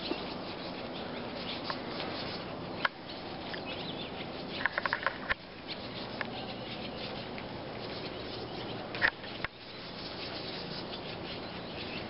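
A large flock of birds calling together in a continuous dense chatter, with a quick run of louder chirps about halfway through and a few sharp clicks.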